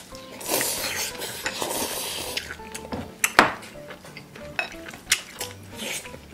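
Noodles being slurped and chopsticks clicking against glass bowls, a long slurping hiss in the first couple of seconds, then scattered clinks; a sharp clink about three and a half seconds in is the loudest sound.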